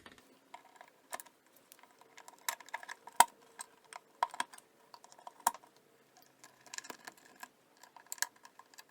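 Plastic wiring-harness connectors clicking and tapping as they are pushed onto the pin connectors of a refrigerator's electronic control board: irregular clicks, the loudest about three seconds in.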